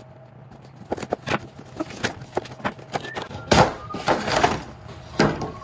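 Scissors snipping through the sealed edge of a cardboard toy box, a string of sharp clicks and snips, then the box being pulled open with a louder rasping rustle of cardboard and plastic packaging about midway.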